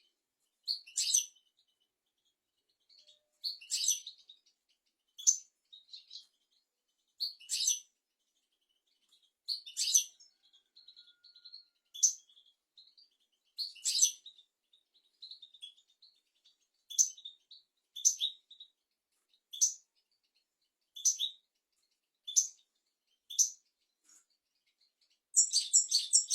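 European goldfinch singing: short, bright twittering phrases repeated every second or two, ending in a fast, dense run of notes.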